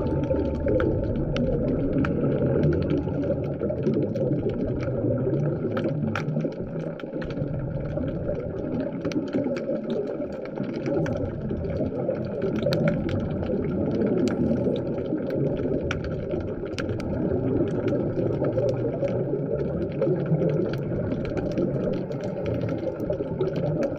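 Underwater ambient noise picked up by a camera in its housing: a dense, steady rush of water with many scattered sharp clicks and crackles.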